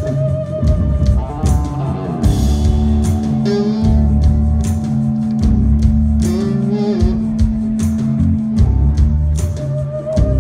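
Live blues-rock band playing an instrumental passage: electric guitar over bass and a steady drum beat, with one long held note through the middle.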